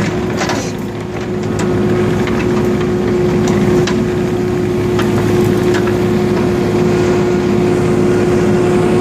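Heavy equipment diesel engine running steadily under a constant whining tone, growing louder about a second and a half in, with a few light knocks.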